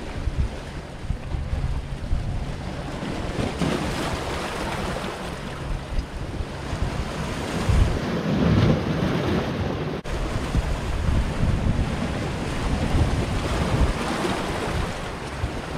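Sea waves washing and breaking over shoreline rocks, with wind buffeting the microphone; one surge a little after the middle is the loudest.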